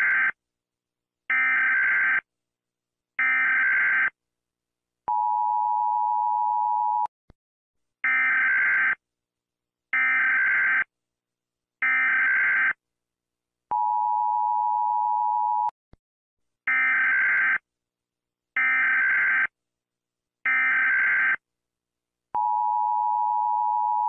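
Emergency Alert System tones: three short screeching data bursts of the SAME header, then about two seconds of the steady two-tone attention signal. The whole pattern repeats three times.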